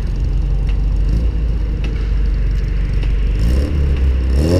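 Car engine running with a steady low rumble, its pitch rising in the last second or so as the car accelerates.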